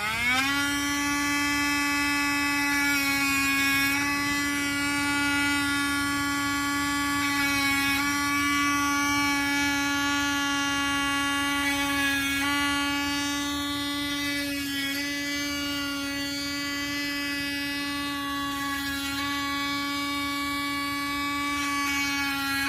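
Small electric power tool's motor spinning up with a rising whine, then running at a steady high pitch while cutting wood, the tone dipping slightly a few times.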